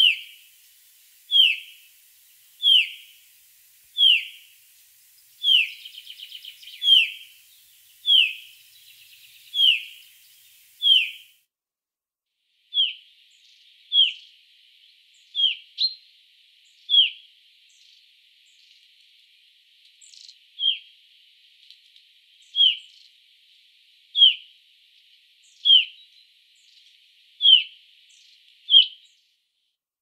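Common chaffinch of the Black Sea subspecies giving a series of short, sharp call notes, each sweeping quickly downward in pitch, repeated about once every second and a half with a brief pause near the middle.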